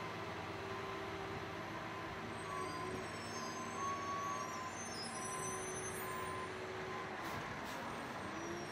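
Johnston RS655 street sweeper on a 2020 Freightliner M2 106 truck chassis running as it moves slowly: a steady mechanical drone with held whining tones on top.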